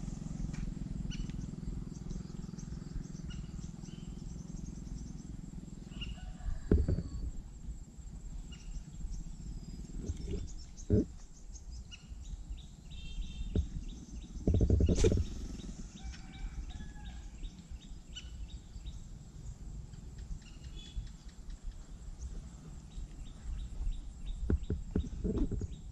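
Outdoor rural ambience: birds chirping on and off over a steady high insect drone, with a low rumble in the first few seconds and a few dull thumps.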